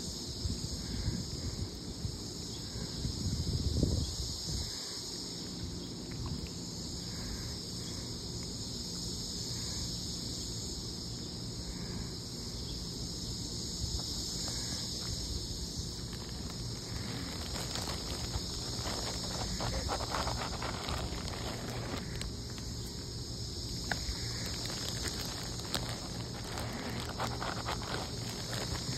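Outdoor pond-side ambience: a steady, high insect drone throughout, with a low rumble about four seconds in and a few louder rustling patches in the second half.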